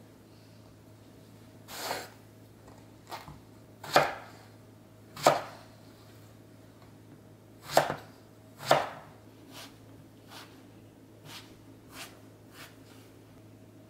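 Kitchen knife cutting eggplant on a wooden cutting board: a few firm chopping strokes through the eggplant, then a run of lighter taps as the cut pieces are scored crosswise.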